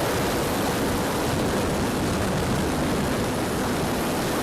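Wind rushing over the microphone, with the faint steady drone of an E-flite Valiant RC plane's electric motor and propeller in the air.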